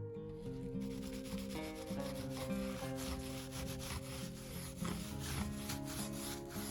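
Quick, light strokes of a paintbrush scrubbing paint onto a picture frame, a rapid run of dry rubbing strokes. Acoustic guitar music plays underneath.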